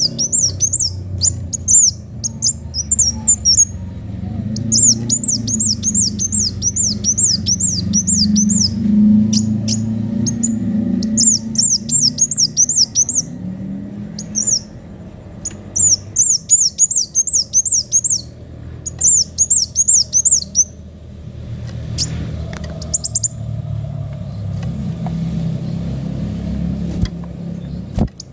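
Kolibri wulung sunbird singing: fast, high, thin runs of repeated sweeping notes, delivered in bursts of a second or two with short pauses between them. A steady low hum runs underneath.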